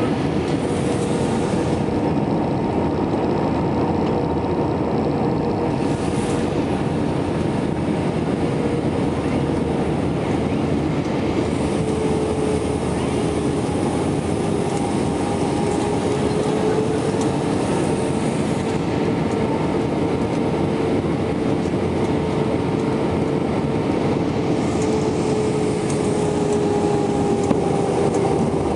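Steady cabin roar of an Airbus jet airliner in flight, heard inside the cabin at a window seat over the wing, with a faint steady engine whine that drifts slightly lower in pitch.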